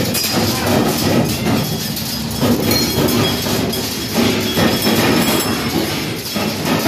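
Continuous mechanical clatter and rumble inside a carnival fun house, with many short knocks and thumps from its moving parts and feet on its floor.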